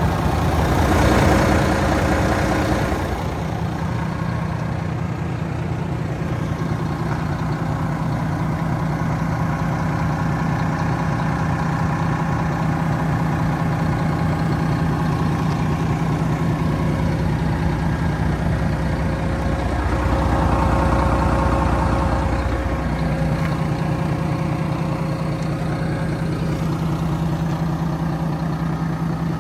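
Volvo FM450 tractor unit's 13-litre straight-six diesel idling steadily, with a deeper rumble swelling for a couple of seconds about twenty seconds in.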